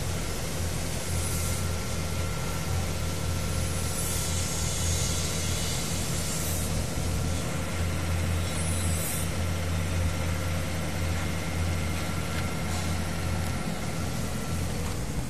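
A steady low mechanical hum, like an idling engine, with a few brief hisses over it.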